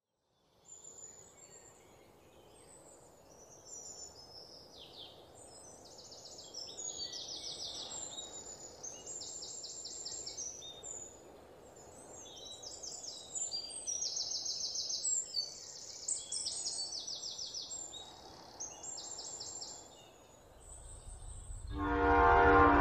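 Several songbirds singing and calling in quick trills and chirps over a steady low outdoor hum. About 21 seconds in, a low droning music track comes in and quickly becomes much louder.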